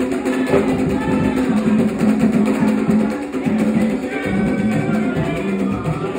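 Group of voices singing a Haitian Vodou ceremonial song together over steady drumming.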